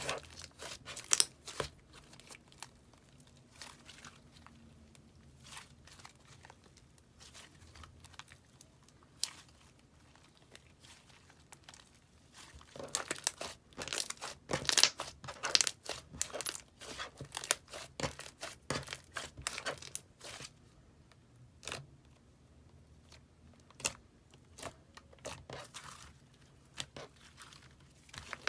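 Hands squishing and stretching slime, making irregular crackling and popping clicks, thickest a little before halfway through, with quieter stretches of only a few pops.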